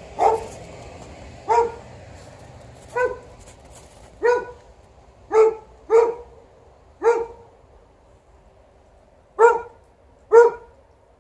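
A dog barking: about nine single, short barks, roughly a second apart, with a longer pause before the last two.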